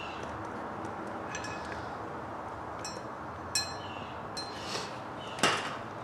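Hand grease gun being worked on a golf cart kingpin's grease fitting: a few sharp metallic clicks and clinks at uneven intervals, the loudest near the end, over a steady hiss of room noise.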